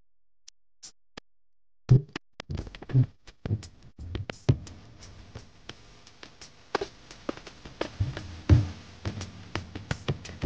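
Music with drums: a few faint clicks, then from about two seconds in a dense run of percussion with heavy low drum hits.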